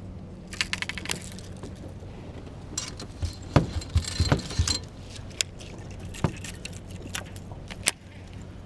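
Metallic clinking and clicking, like fishing tackle or gear handled in a boat. There is a quick run of clicks about a second in, a busier cluster of clinks and knocks with low thumps from about three to five seconds in, and a few single clicks near the end, over a steady low hum.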